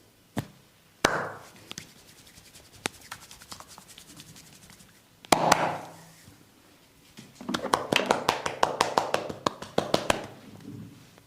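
Massage hand strikes on the body: a few single sharp slaps, then a fast run of chopping hand strokes, about eight a second, for close to three seconds near the end.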